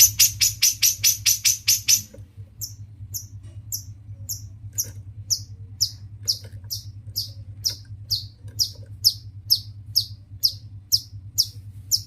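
Long-tailed shrike (cendet) singing: a fast run of harsh repeated notes about seven a second, then from about two seconds in a slower series of short, high, downslurred notes about two a second. A steady low hum runs underneath.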